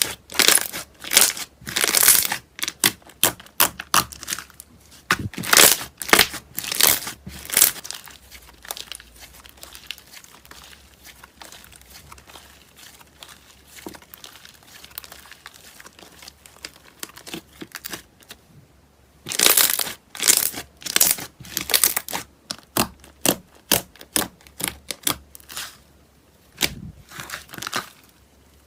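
Slime being squeezed, folded and stretched by hand, giving off rapid bursts of crackling and popping. The crackles come in loud clusters at the start and again in the last third, with a quieter, sparser stretch in the middle.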